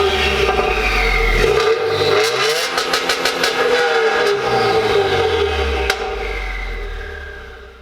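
2018 Subaru WRX's turbocharged flat-four engine revving through its current exhaust, with an aftermarket J-pipe ahead of the factory mufflers. The pitch rises about two seconds in and falls back a few seconds later. The sound fades out near the end.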